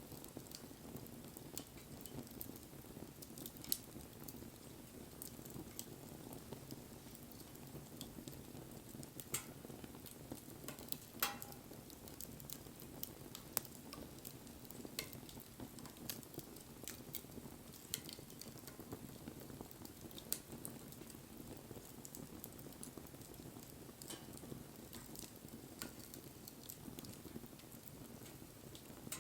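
Wood bonfire burning: a low, steady rustle of flame with scattered sharp crackles and pops throughout and a few louder snaps, one with a brief hiss about eleven seconds in.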